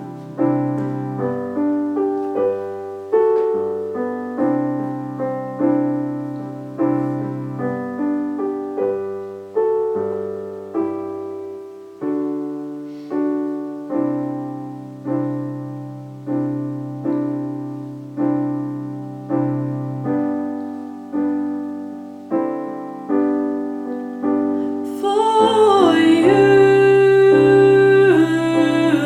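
Piano playing a slow accompaniment of struck chords, roughly one a second, each dying away. Near the end a woman's voice comes in singing the alto part over the piano, louder than it, with a wavering vibrato.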